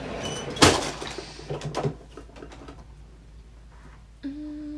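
Makeup products being rummaged through and handled, small hard cases clicking and rattling, with one sharp knock about half a second in. A short steady hum from a voice near the end.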